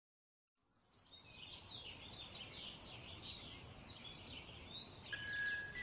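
Songbirds chirping and twittering in quick, overlapping calls over a faint outdoor hiss, fading in about a second in. A steady high chime-like note begins near the end.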